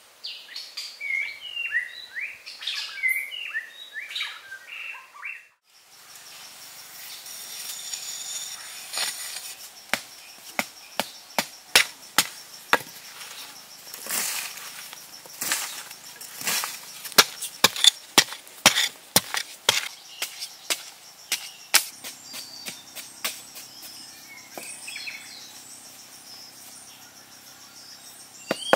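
Small birds chirping, broken after about five seconds by a run of irregular sharp knocks or taps over a steady high-pitched hum, then birds chirping again near the end.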